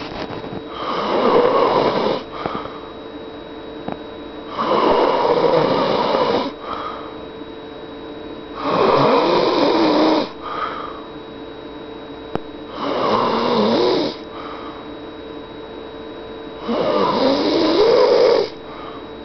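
A woman snoring loudly in her sleep: five long snores, each about one and a half to two seconds, coming about every four seconds.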